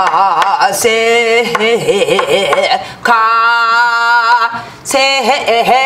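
A woman sings the refrain of a Korean Namdo-style folk song alone, in a trained pansori-style voice. She holds long notes, wavering with a wide vibrato at first and then held steady, with short breaths about three and five seconds in. She is demonstrating how the last rising note is to be held and carried into the next phrase.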